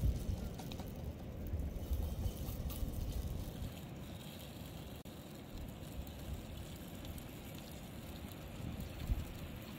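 Open wood fire burning under a wide metal frying pan, with a low rumble and a few faint crackles; the rumble is strongest in the first few seconds.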